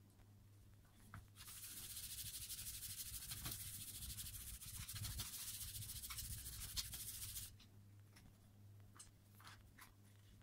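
Card paper rubbing and scraping against an inked linocut block as a print is pulled by hand, a continuous scratchy hiss lasting about six seconds, sped up to double speed. It stops abruptly and gives way to a few light paper-handling clicks.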